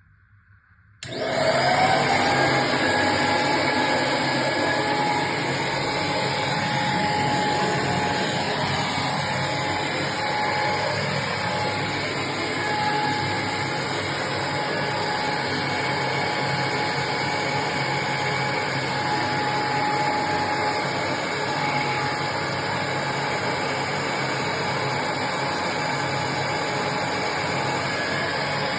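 Vacuum cleaner switched on about a second in, its motor winding up with a rising whine, then running steadily with a constant high whine over a broad rush of air.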